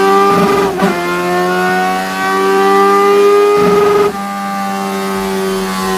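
Kawasaki Z900 inline-four engine revving hard at high rpm: a steady high-pitched note that climbs slowly, dips briefly near the start, and steps down to a lower held pitch about four seconds in.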